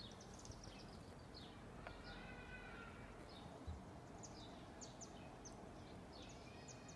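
Faint chirping of small birds: scattered short, high, falling chirps, with a brief twittering run about two seconds in and another near the end. A soft low thump a little before the four-second mark.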